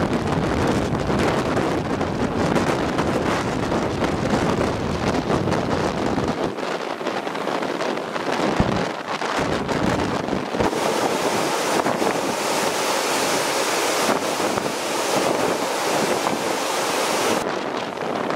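Storm waves breaking and washing onto the riverbank, with strong gusting wind buffeting the microphone. The deep wind rumble is heaviest for the first six seconds or so. Later the hiss of the surf comes forward.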